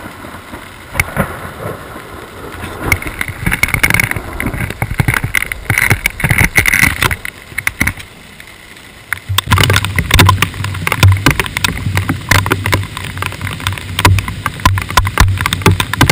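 Rain tapping irregularly on a GoPro's waterproof housing. About halfway through, hail starts pelting the housing in dense, rapid knocks.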